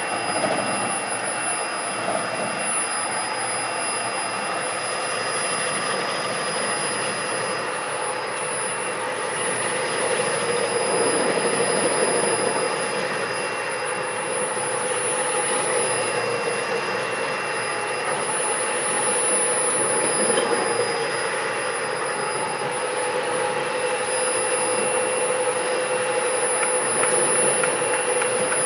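15 hp direct-drive four-head concrete grinder running on a concrete floor: a steady, high-pitched whine over a rough grinding noise, swelling slightly in level a few times.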